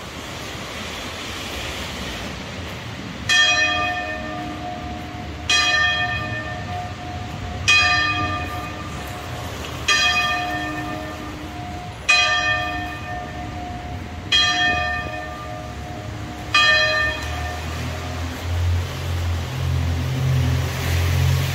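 A single large tower bell struck seven times at an even pace, about two seconds apart, each stroke ringing and fading. Near the end, the low hum of a vehicle engine rises over the steady traffic noise.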